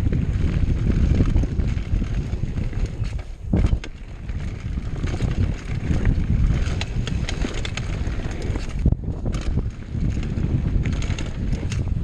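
Mountain bike descending a rough downhill trail: wind buffets the microphone in a steady low rumble while the bike clatters and rattles over the uneven ground. The rattling briefly eases twice, about a third of the way in and again about three quarters in.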